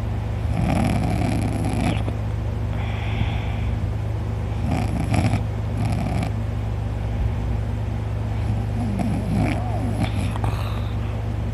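A man snoring heavily, with three long rasping snores about four seconds apart over a steady low hum.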